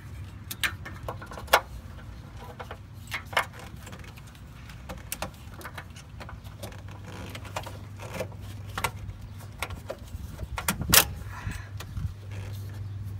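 Irregular clicks, knocks and rattles of hoses and corrugated plastic wire loom being handled and pulled into new positions under a Jeep, with sharper snaps about a second and a half in and near the end. A steady low hum sits underneath.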